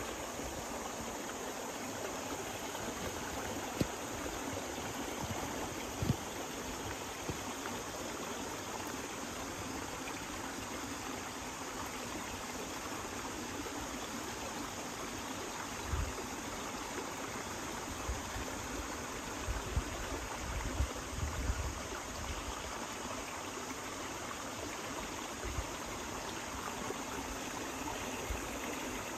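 Shallow stream water trickling and running steadily, with a few dull low knocks now and then, most of them clustered near the middle.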